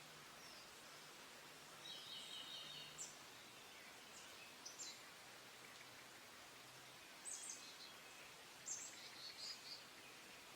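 Small wild birds singing in the spring woods: about four short bursts of high chirps and quick trills, separated by pauses, over a faint steady hiss.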